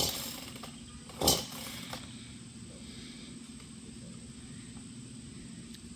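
Chainsaw running steadily at idle, with two short knocks, one at the start and another just over a second in.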